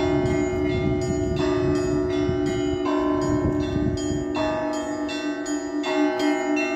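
Church bells ringing: several bells struck in quick, overlapping succession, each stroke ringing on under the next, with a lower bell sounding in a steady pulse beneath.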